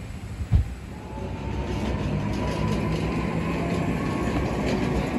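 A single thump, then a steady machine rumble with a faint high whine that builds up about a second in.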